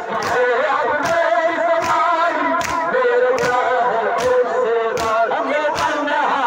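A crowd of men chanting a noha, a Shia mourning lament, in unison, with rhythmic matam (hands slapping on chests) about every 0.8 s in time with the chant.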